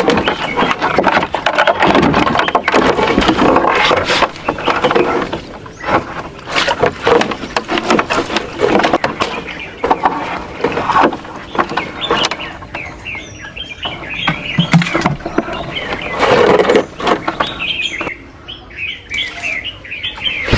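Loud rustling and handling noise for the first few seconds, then scattered sharp knocks, with small birds chirping in quick repeated notes through the second half.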